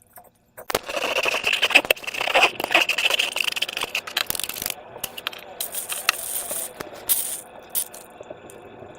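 Crackling, rattling clicks from slime-making materials being handled. The clicks are dense for about three seconds, starting just under a second in, then thin out to scattered clicks.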